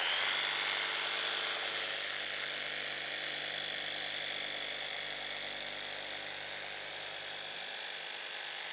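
Festool ISC 240 cordless insulation saw, its brushless 18 V motor running steadily with a high whine as the reciprocating serrated blade cuts down through mineral wool insulation.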